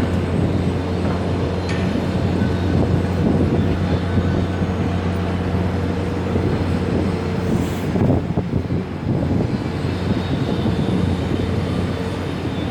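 Tower crane machinery running with a steady low hum over a noisy drone, with a brief rougher patch about eight seconds in.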